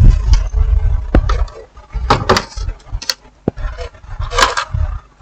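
Sharp clicks, knocks and light clatter of TV parts being handled and set in place during reassembly, over a patchy low rumble.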